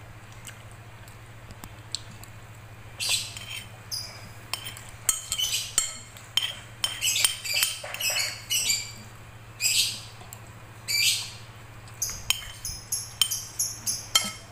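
Metal spoon scraping and tapping on a ceramic plate, gathering the last of the fried noodles and rice: short high-pitched scrapes and clinks, sparse in the first few seconds and then coming every second or so, over a faint steady hum.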